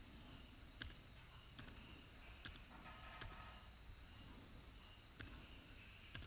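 Faint room tone with a steady high-pitched whine and a few soft clicks.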